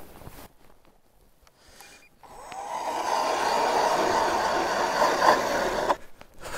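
StrikeMaster power ice auger starting about two seconds in, its motor rising in pitch and then running steadily as it bores through lake ice, then stopping abruptly near the end.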